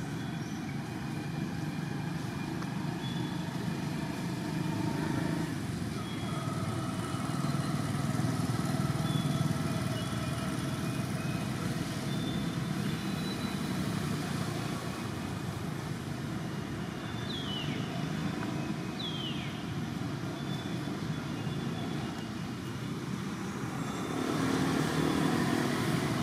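Steady low rumble of motor traffic that swells and fades as vehicles pass. Faint high chirps sound over it, with two short falling squeaks near the middle.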